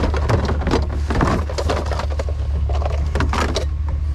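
Scrap and junk being rummaged through and handled in a hurry: a quick, irregular run of knocks and clatters, over a steady low hum.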